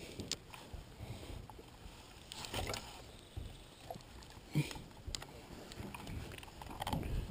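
Spinning rod and reel being handled and cast: scattered light clicks and knocks, with a sharper knock shortly after the cast about four and a half seconds in, over a low rumble.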